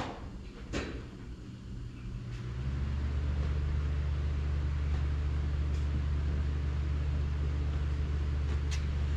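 A couple of light knocks, then a steady low machine hum starts about two seconds in and holds, like a motor or engine running.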